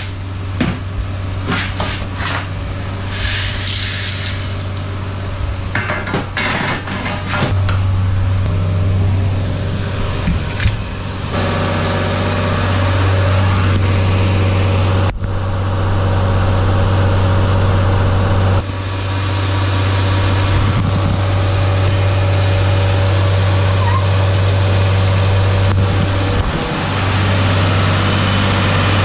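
A large engine running steadily with a low, even hum. Clicks and knocks sound over it in the first several seconds.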